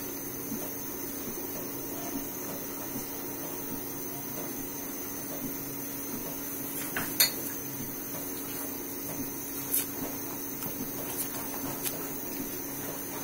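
Wooden spoon stirring thickening milk in an aluminium karahi, with a few sharp knocks of the spoon against the pan, the loudest about seven seconds in. A steady low hum runs underneath.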